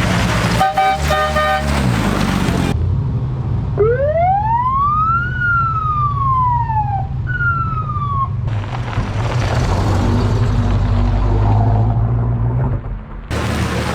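Vintage car engines running, with a two-note car horn tooting briefly about a second in. Then a siren winds up fast and falls away slowly, followed by a second shorter falling wail.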